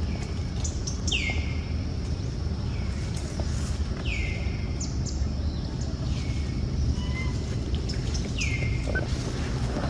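A bird calls four times, every two or three seconds: a short call that drops sharply in pitch, then holds briefly. A steady low rumble runs underneath.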